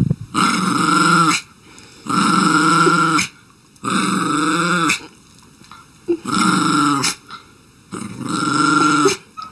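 Small shaggy dog growling with teeth bared at a bare foot pushed toward it: five long, drawn-out growls of about a second each, with short pauses between.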